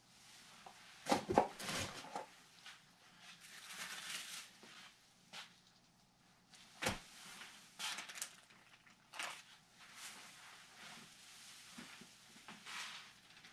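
Handling noises from hand work on a carbon fibre and epoxy layup: a cluster of knocks about a second in, a single sharp click about halfway, and scattered short swishing scrapes in between.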